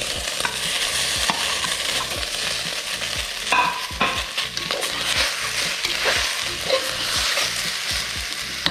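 Rice and raw chicken pieces sizzling in butter in a hot aluminium pressure cooker, stirred with a steel spoon that scrapes and clicks against the pot many times.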